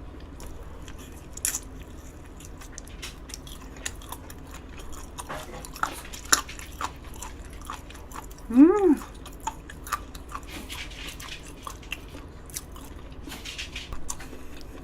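Close-miked chewing of soondae and pork offal, with many wet mouth clicks and small crunches from gristly cartilage. There is a short closed-mouth 'mm' hum about two-thirds of the way through.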